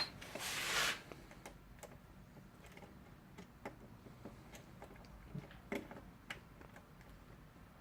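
Multimeter probes being handled at an outlet while a voltage is checked: a short rustle about half a second in, then faint scattered clicks and taps.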